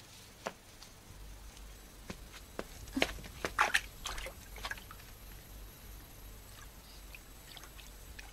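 Short, irregular splashes and drips of water as live fish are handled at the water's edge, bunched together and loudest about three to four seconds in, over a faint low rumble.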